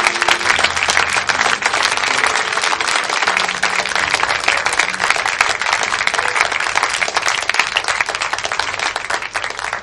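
Audience applauding: many hands clapping in a dense, steady stream, as at the end of a song in a live music recording.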